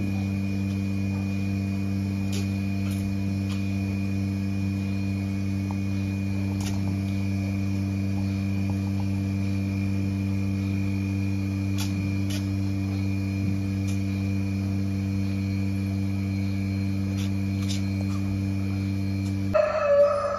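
Steady machine hum in a cow barn, even and unchanging, with a few faint clicks. Near the end the hum cuts off and a calf gives a short, loud bleat that falls in pitch.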